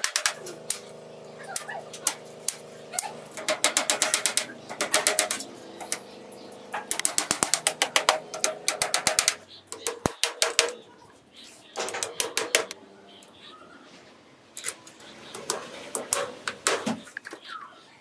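Small hand hammer tapping on a wooden bird-cage frame fitted with wire mesh. The taps come in quick runs of light strikes separated by short pauses.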